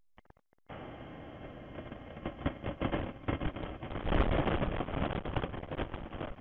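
Off-road SUV driving through deep snow, its engine running under load, heard as a rough, uneven noise that comes in suddenly under a second in and is loudest a little past the middle.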